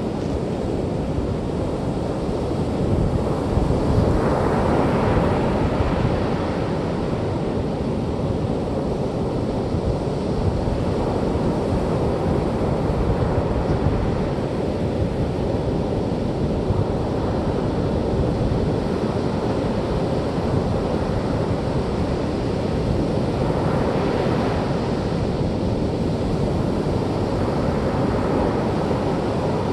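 Surf washing on the beach, mixed with wind rumbling on the microphone; a wave washes in more loudly about four seconds in, and again about three quarters of the way through.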